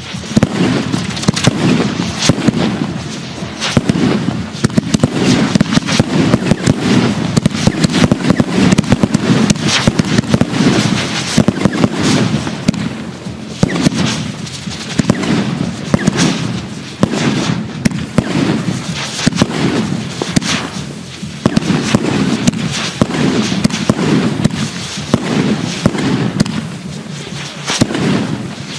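A Funke 'Aces High' 2-inch firework cake firing in quick succession: shots and aerial bursts follow one another several times a second without a break.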